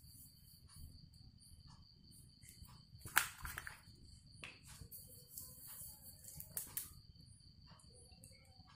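Light handling knocks and clicks of a plastic glue bottle being picked up and squeezed over a glass bowl. The loudest knock comes about three seconds in, with a few more later. Under them is a faint steady high-pitched whine.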